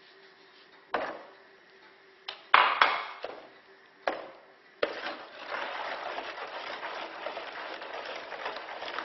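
A metal skimmer knocks against a copper jam pan about half a dozen times, the loudest knocks close together in the first three seconds. Steady rustling and crackling follows for the last four seconds.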